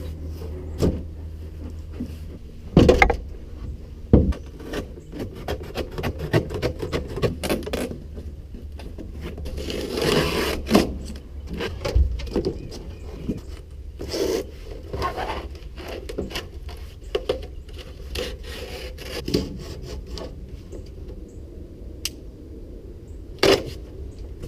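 Irregular scraping and rubbing with many scattered sharp knocks. The loudest knocks come about 3 and 4 seconds in and near the end, and there is a longer scrape around the middle.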